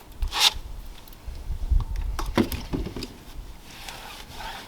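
A short hiss from a hand spray bottle of wheel and tire cleaner about half a second in, then low rumbling handling noise and a couple of light knocks.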